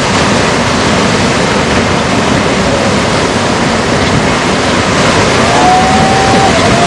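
Steady, loud rushing of water, like surf or the sea heard close up, with a few faint tones gliding up and down near the end.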